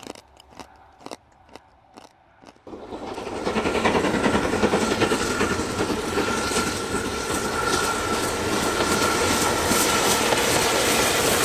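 A steam locomotive and its carriages running past on the rails, coming in about three seconds in after a few faint clicks and building to a loud steady rush of exhaust and wheels, with a thin high tone running through it.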